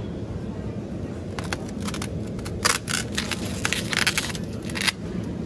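Plastic food packaging crinkling in a hand: irregular crackles for about three seconds, starting about a second and a half in, over a steady low supermarket hum.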